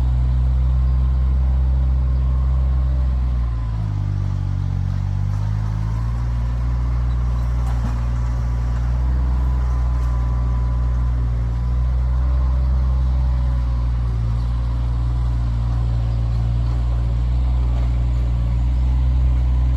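Kioti tractor's diesel engine running steadily under work, its note shifting briefly about four seconds in before settling back.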